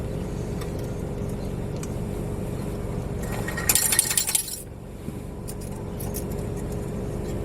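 A handful of quarters clattering out of a car wash bill changer into its metal coin tray, about three and a half seconds in, over the steady low hum of an idling car.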